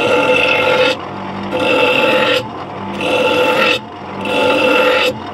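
A cheap Argos bench grinder motor runs with a steady hum while a metal boat hook is pressed against the wheel in about four passes. Each pass gives a harsh grinding scrape of about a second, with short gaps of plain motor hum between them.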